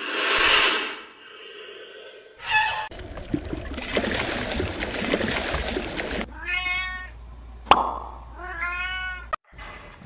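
A run of animal calls: a loud cry in the first second, a noisy hiss through the middle, and two meow-like cries near the end, each rising and then falling in pitch.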